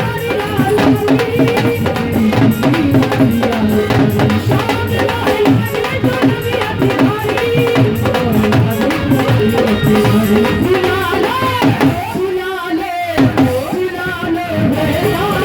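Devotional bhajan music without singing: a melody line over steady drum and rattle percussion.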